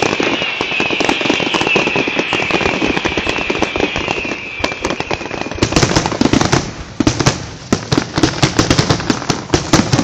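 Aerial fireworks going off in a dense run of rapid bangs and crackles. A high whistling tone slowly falls in pitch over the first half and stops about halfway. A louder barrage of sharp reports follows in the last few seconds.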